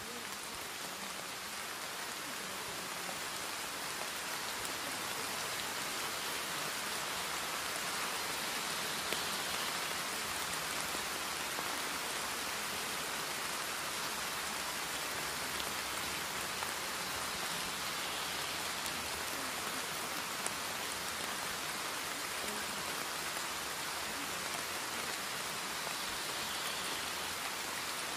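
Steady rain sound: an even hiss of rain falling on a surface, with a few faint drop ticks.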